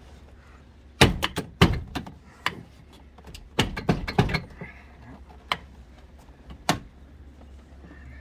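Plastic front door trim panel (door card) of a 2004 Chevrolet Astro van knocking and clicking against the door as it is worked and lifted up off its mounting pins and clips. A cluster of sharp knocks starts about a second in, then two single clicks follow near the end.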